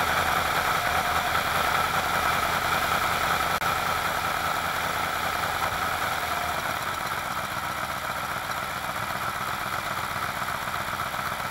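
Alfa Romeo Montreal's 2.6-litre V8 with Spica mechanical fuel injection idling steadily on its first test run after a head-gasket repair. The low part of the sound eases off and the engine gets a little quieter about two-thirds of the way through.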